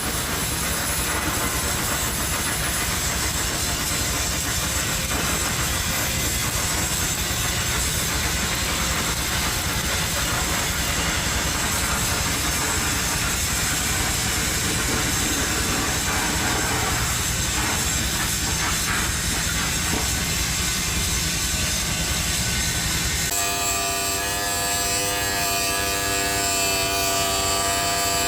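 Flux-cored arc welding at about 175–185 amps, laying a cap pass on pipe: a steady, even crackle and hiss from the arc. Near the end it gives way to a power tool's steady whine with several pitches.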